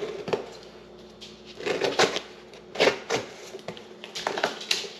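A parcel being opened by hand: irregular rustling, crinkling and tearing of its packaging in short bursts.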